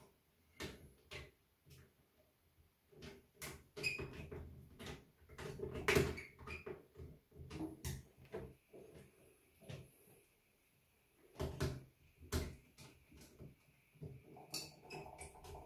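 Scattered light clicks, taps and knocks of hands and a screwdriver working wires into terminals inside an electrical distribution board, at irregular intervals.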